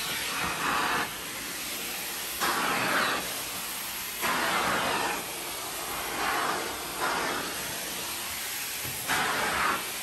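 Central vacuum drawing air through a wand and floor tool on a tile floor: a steady rushing of air that swells louder for about a second roughly every two seconds as the tool is swept back and forth.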